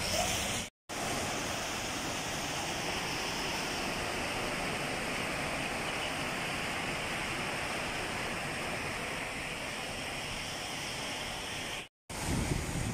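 Floodwater running fast across a street, a steady rushing hiss of moving water, broken by two short silent gaps about a second in and near the end.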